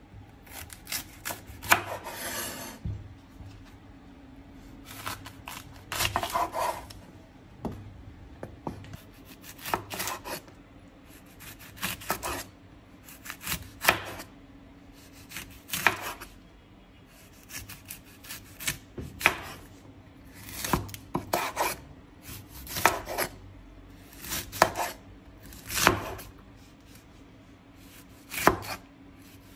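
Kitchen knife chopping on a cutting board in short runs of quick strokes, a run about every two seconds.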